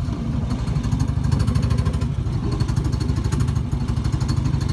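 A steady low mechanical rumble with fast, even pulsing, like a running motor or engine.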